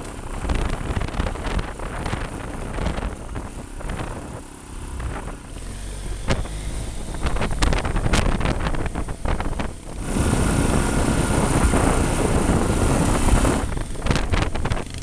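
Adventure motorcycle engine running steadily while riding a rough dirt trail, with scattered knocks and rattles. From about ten seconds in, a louder rush of wind noise on the microphone takes over for a few seconds.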